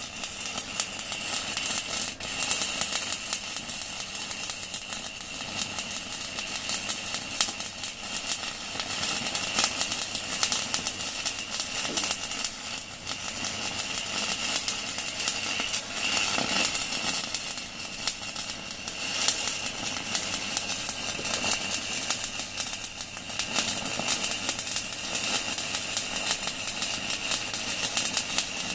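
Stick-welding arc crackling and sizzling steadily as a 4 mm UONI electrode burns at 160 A from a REDVERG RD-WM 185 MINI inverter welder, run near its maximum current in a stress test.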